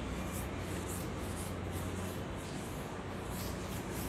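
A cloth wiping a chalkboard: quick rubbing swishes, two or three a second, that stop near the end.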